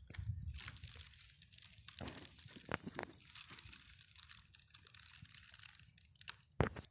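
Dry immortelle (helichrysum) stems rustling and crackling right against the microphone, with many small clicks and a sharp knock near the end.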